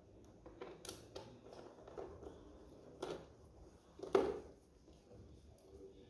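Scattered light clicks and knocks of a hand nut driver on the scooter's stator-cover bolts as they are undone, the loudest about four seconds in.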